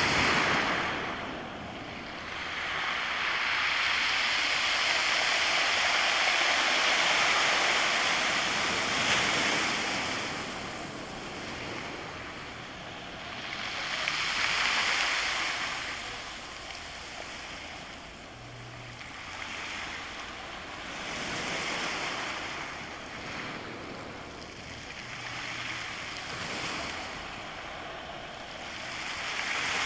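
Sea backwash dragging over beach stones: a noisy wash that swells and fades with each wave, one long surge of about seven seconds near the start, then shorter surges every six to eight seconds.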